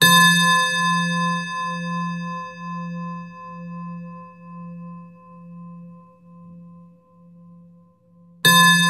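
A singing bowl struck once and left to ring: a low, pulsing hum with higher overtones fading slowly over about eight seconds, then struck again near the end.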